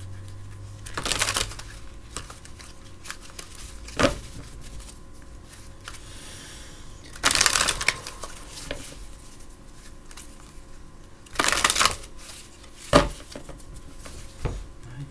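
A Rider-Waite tarot deck being shuffled by hand: several short bursts of cards rustling and slapping together, the longest about seven seconds in, with sharp taps at about four and thirteen seconds.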